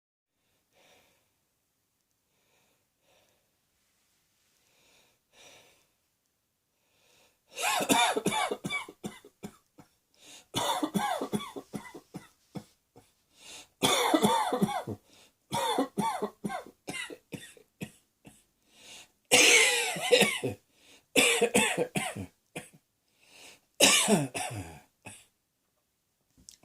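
A person coughing in repeated fits, each a quick run of sharp coughs, about eight bouts starting some seven seconds in, with only faint sounds before; a persistent, ongoing cough.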